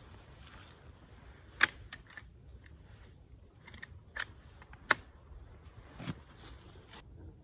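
Hunting rifle being handled: a string of sharp metallic clicks and clacks, the two loudest about a second and a half in and just before five seconds in, with faint rustling of clothing and gear between them.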